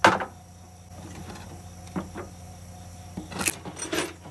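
Cordless 20-volt drill-driver with a socket whirring as it runs bolts off a push-mower engine's mounting to the deck, with a sharp metal clank at the start and a few light metal clicks later.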